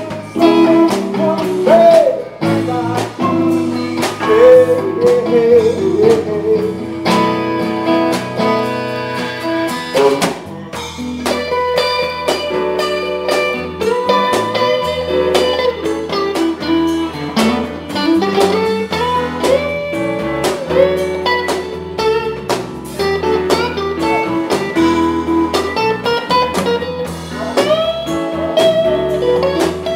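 Live blues band playing an instrumental passage: a guitar lead with bending, gliding notes over bass, drums and keyboards.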